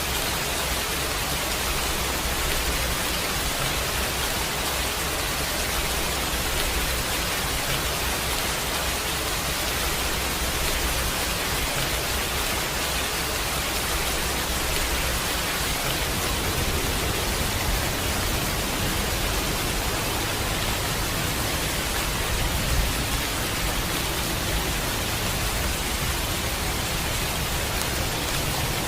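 Steady heavy rain, an even hiss with a low rumble underneath.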